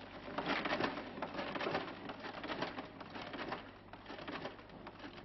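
Rotary stencil duplicator being turned by hand, its drum and paper feed giving a run of rapid clicks and rustles over a steady low hum.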